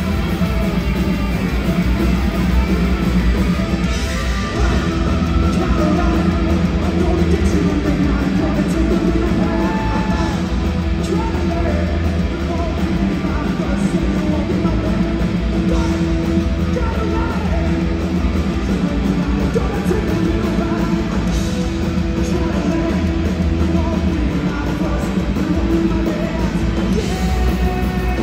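Live punk rock band playing loud, with distorted electric guitar and a singer's voice over the top.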